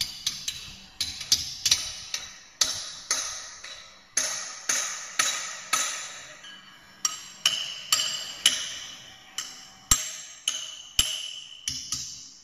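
Hand hammer striking a steel punch against the tubes in the tube sheet of a turbine oil cooler, about two blows a second, each with a short metallic ring. Two heavier knocks come near the end.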